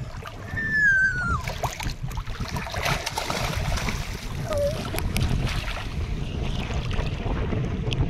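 Wind buffeting the microphone over a wash of water noise. A single short high call falls in pitch about half a second in.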